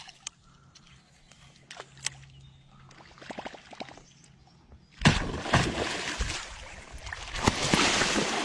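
Water splashing and sloshing, starting suddenly and loudly about five seconds in after a few faint clicks, as a large hooked fish thrashes at the surface.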